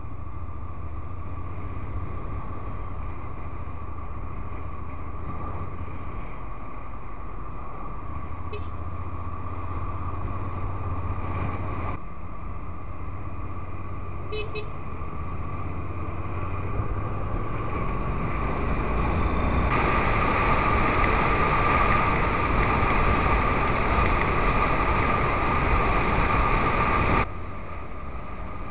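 Honda NC750X DCT motorcycle being ridden in traffic: its parallel-twin engine runs steadily under road and wind noise picked up by a camera on the bike. The sound grows louder through the second half, then drops off abruptly near the end.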